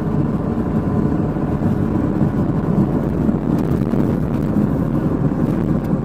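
Car driving, heard from inside the cabin: a steady rumble of engine and tyre noise.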